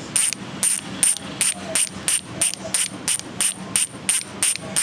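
Heroic AM 8.4 bicycle rear hub's six-pawl freehub clicking as it is spun, in short buzzing bursts about three times a second.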